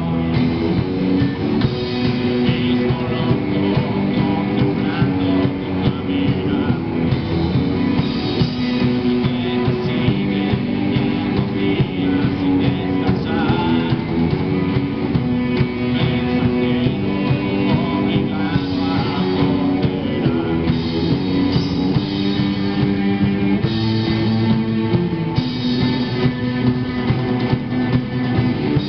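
Live rock band playing amplified electric guitars, bass guitar and drum kit, with sustained chords changing every second or two over a steady drum beat.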